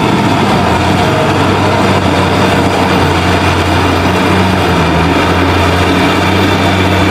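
Heavy diesel engine running steadily, as of a bulldozer: a loud, constant low hum with a rough, noisy edge.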